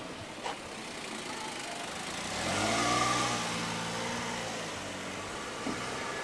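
A car drives past close by. Its engine and tyre noise swell to a peak about three seconds in, the engine note dropping in pitch as it goes by, then fade away. There is a short sharp click about half a second in.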